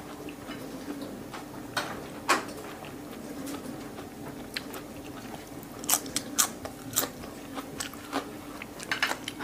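A person biting and chewing raw green onion stalks, with sharp crisp crunches about two seconds in and again several times around six to seven seconds in.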